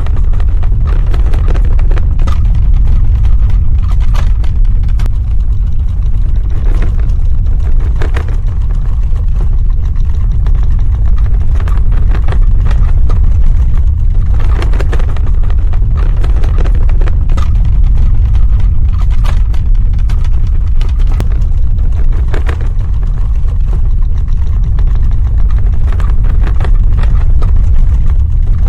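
Earthquake rumble sound effect: a loud, continuous deep rumble with irregular crackles and rattles scattered above it.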